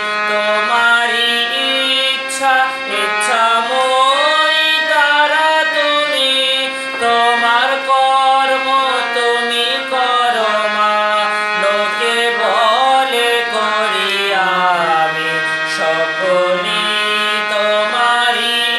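A man singing a Bengali devotional song to his own harmonium accompaniment. His voice glides between long held notes over the harmonium's steady reed drone and chords.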